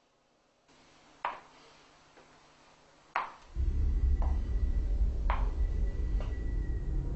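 A few sharp clicks in near silence, then a loud low rumbling drone sets in about three and a half seconds in. Fainter clicks come about once a second over it, and a thin steady high tone joins it.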